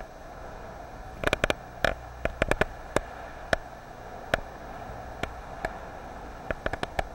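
Kayak paddling in a sea cave: a steady hiss with irregular sharp clicks and knocks, a quick cluster of them about a second in and another near the end.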